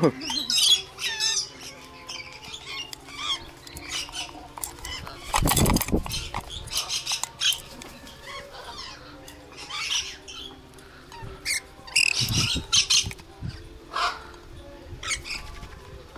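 Parrots and lories calling in short, sharp squawks and screeches. Twice, about a third of the way in and again past the middle, there is a louder burst that fits wings flapping as lories land on a hand-held feeding cup.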